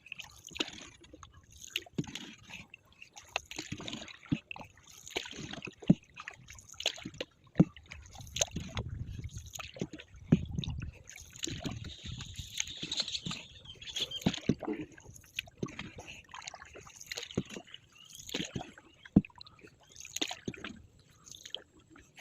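Water sloshing and splashing, with many irregular knocks and clicks throughout and a low rumble about halfway through.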